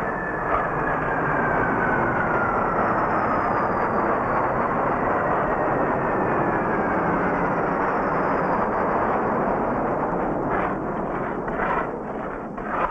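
An aircraft passing overhead: a loud, steady rush with a whine that slowly falls in pitch, thinning out after about ten seconds. A few short knocks come near the end.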